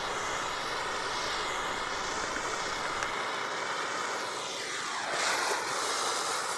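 Handheld gas blowtorch flame burning with a steady rushing hiss, swelling a little about five seconds in.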